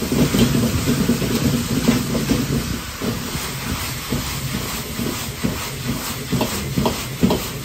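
Wok cooking over a high-powered gas burner: a steady rush of burner noise and sizzling, with a metal ladle scraping and striking the wok. The ladle strikes become distinct in the second half, about three a second.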